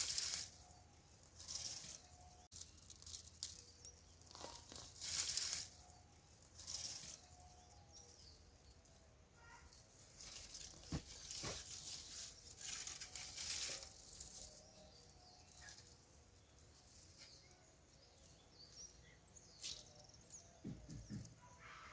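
Dry potato haulms and soil rustling and crunching in irregular bursts every second or two as potatoes are dug out of a raised bed.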